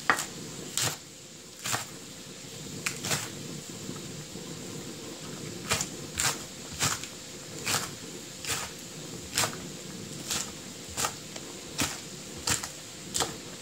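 Kitchen knife chopping a green onion on a wooden cutting board: slow single chops about once a second, each a short sharp knock, over a steady low hum.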